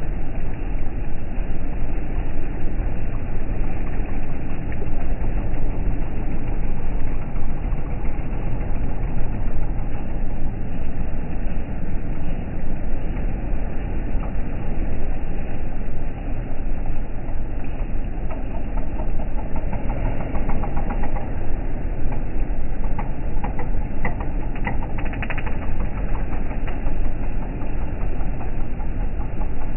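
A ferry's engine running steadily under power, mixed with the rush of propeller wash churning the water alongside the hull.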